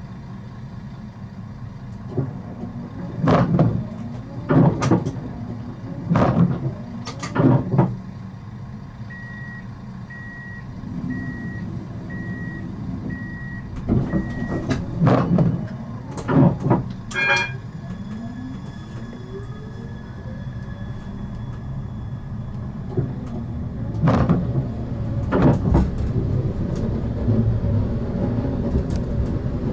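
Siemens Avenio tram at a stop: a row of about six evenly spaced high warning beeps, a sharp clunk, then the traction drive whining upward in pitch as the tram pulls away. Under it runs a steady low rumble, broken by several loud irregular knocks.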